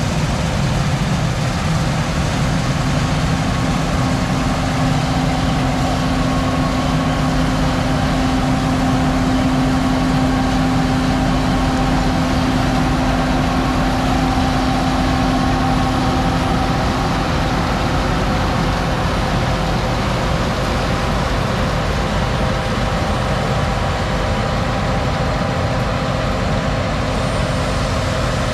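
Case IH 2388 combine running steadily under harvest load, a continuous engine and machinery drone with a steady hum that fades out about two-thirds of the way through.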